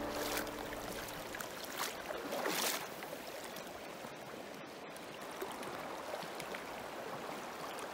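Shallow river water running over a gravel bed, a steady rushing ripple, with a few brief louder swells in the first three seconds.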